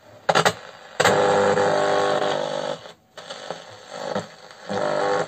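Knob clicks, then a VEF-202 transistor radio comes on loudly through its speaker about a second in, working from a mains power block in its battery compartment. Its sound cuts out briefly and changes as the knob is turned.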